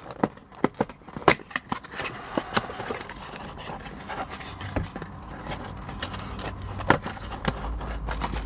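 A cardboard trading-card blaster box being torn open and handled: quick crackles, scrapes and rubbing of cardboard, thickest in the first few seconds, then quieter rustling with a few clicks.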